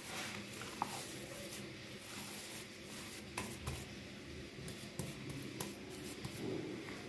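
Hands kneading and squeezing a soft minced chicken-and-mutton kebab mixture in a plastic bowl: wet squishing, with a few short sharp clicks.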